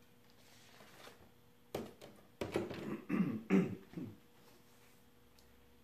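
A single sharp knock, then a man clearing his throat in a few short bursts, in a small room.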